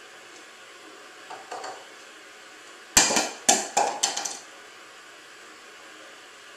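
A small object drops onto a tile floor and bounces: one sharp clatter about three seconds in, then four or five lighter bounces coming quicker and quicker over about a second and a half. Two faint knocks come a little before the drop.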